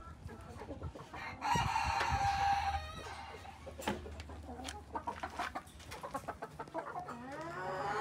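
Chickens clucking, with one long, loud chicken call of about a second and a half starting about a second and a half in. Shorter calls that bend up and down in pitch follow near the end.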